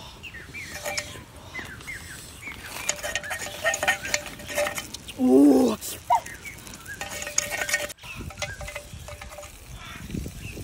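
Metal spoon clinking against a clay multi-well pan, in scattered light taps. About five seconds in, a loud pitched animal call lasts about half a second.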